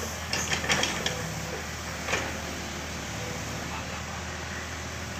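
Sumitomo hydraulic excavator's diesel engine running steadily while its bucket digs into wet soil, with a cluster of knocks and scrapes about half a second to a second in and another knock around two seconds in.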